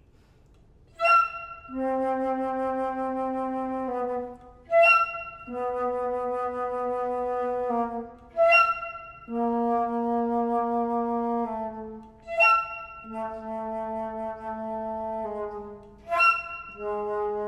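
Flutes in a flute quartet playing a braying figure: a short, sharply accented high note dropping to a long held low note, repeated five times about four seconds apart, imitating a donkey's hee-haw.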